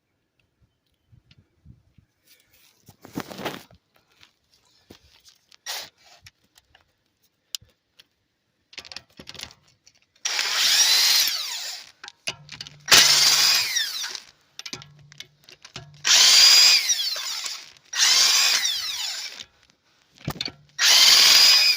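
A half-inch-drive impact gun with an 11/16 socket runs in five short bursts of a second or two each, each rising in pitch as it spins the wheel's lug nuts out, with faint clicks of handling before the first.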